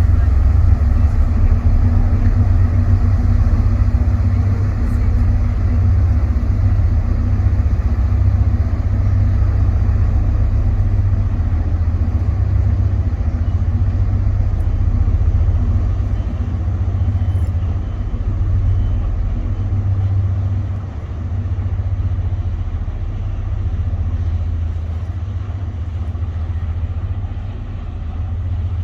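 Twin MTU 16V 4000 M93L sixteen-cylinder marine diesels of a 44 m superyacht running at low revs: a loud, steady, deep bass rumble with a hum above it, easing off slightly after about twenty seconds.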